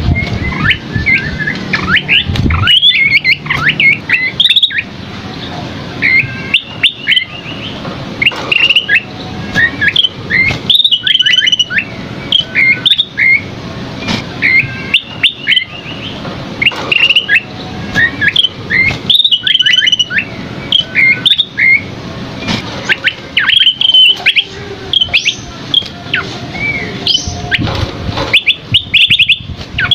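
Scaly-crowned babbler singing: a lively run of short high whistles and quick chirps, some sliding down in pitch, delivered in rapid clusters with brief gaps between them.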